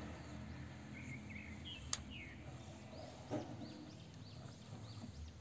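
Faint, repeated short bird chirps in the background, with a sharp click about two seconds in and a soft knock a little after three seconds.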